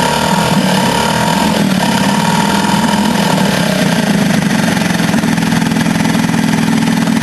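A 1973 Ted Williams 7.5 HP two-stroke outboard motor running steadily. It is freshly rebuilt and is running with no cooling water coming out of the tell-tale; the owner suspects mud dauber nests are blocking the passage up to the water-pump impeller.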